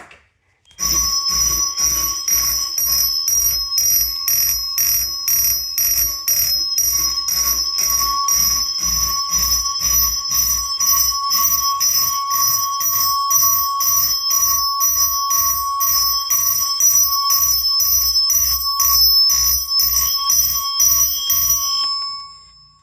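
Simplex mechanical fire alarm chime sounding an alarm, its striker hitting about twice a second with a low thud at each stroke and a bright metallic ring that carries between strokes. It cuts off abruptly near the end.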